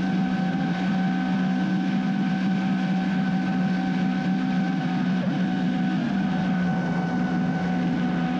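An engine running steadily: a constant drone with a noisy rush over it and a slight shift in pitch about six seconds in.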